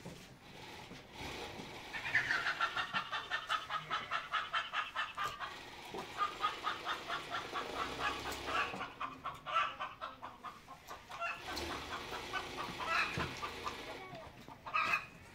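Chickens clucking: a fast run of short repeated clucks starting about two seconds in, then thinning to scattered clucks.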